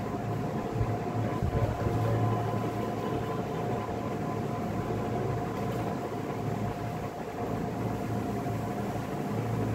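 Steady machine hum of the room with a faint high whine held at one pitch, and a couple of soft knocks in the first two seconds.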